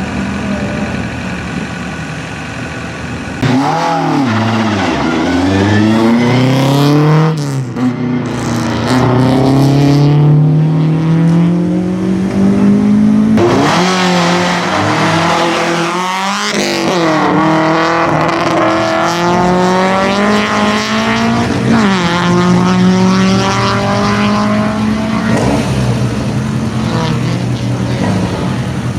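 A racing car's engine on a tight sprint course, its pitch climbing under acceleration and dropping sharply when the driver lifts or changes gear, several times over. A steadier engine note at the start gives way to a sudden jump in loudness a few seconds in.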